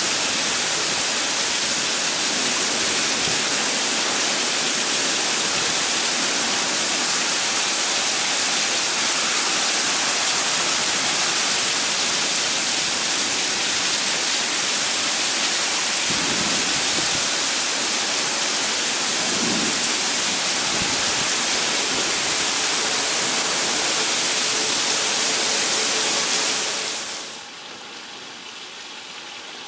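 Heavy wind-driven rain in a severe storm, a loud steady noise; near the end it drops suddenly to a much quieter hiss.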